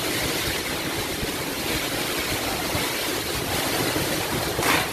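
Strong storm wind and heavy rain: a steady rush of wind through the trees and falling rain, with gusts rumbling on the microphone.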